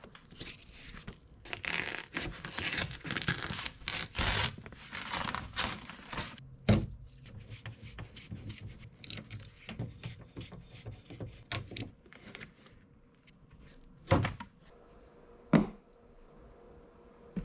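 Plastic door vapor barrier crinkling and tearing as it is peeled away from its sticky sealant, followed by small scattered clicks and scrapes of work inside the door. Two sharp thumps come near the end.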